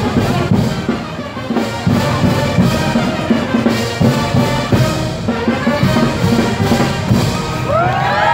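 Brass band playing lively dance music with a steady beat, trumpets and trombones prominent. A rising cheer starts near the end.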